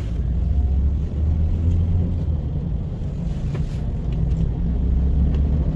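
Steady low rumble of a taxi van driving, road and engine noise heard from inside its passenger cabin.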